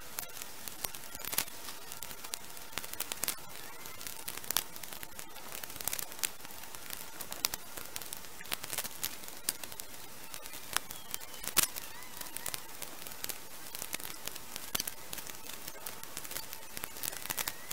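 Dry branches and twigs crackling and snapping in many sharp, irregular clicks as they are handled and trodden on, over a steady hiss of flowing river water.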